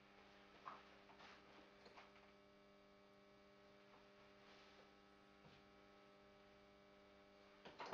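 Near silence, with a faint steady hum and a few faint ticks.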